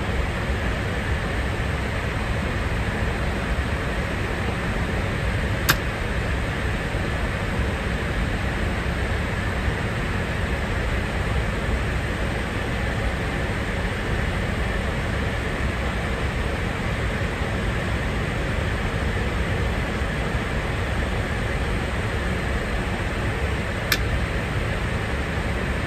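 Steady cabin noise of an Airbus A350 airliner at cruise altitude: a constant, even rush, strongest in the low end. Two brief clicks, about six seconds in and near the end.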